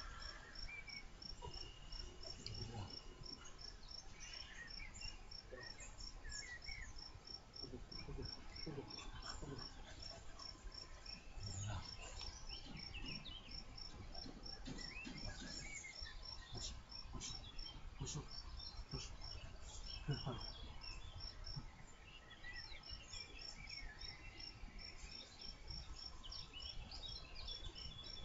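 Outdoor ambience dominated by a cricket chirping in a steady, quick, even run of pulses, with a short break about three quarters of the way through. Birds chirp now and then, and there are a few soft knocks, the clearest about two-thirds of the way in.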